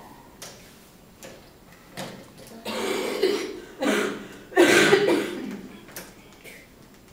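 A person coughing: three loud, rough bursts about a second apart, the last the loudest.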